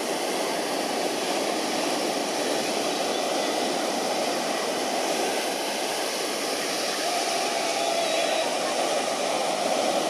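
Steady, even rushing drone of distant aircraft noise over open-air ambience.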